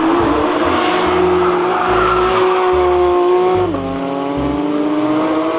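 Racing car engine sound effect: the engine pitch climbs under acceleration, drops suddenly at a gear change about two-thirds of the way through, then climbs again, and the sound cuts off abruptly.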